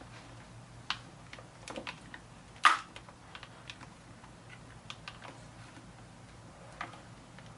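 Handling noise as intercom speakers are fitted inside a motorcycle helmet: scattered light clicks and taps of plastic being handled, with one louder knock about two and a half seconds in.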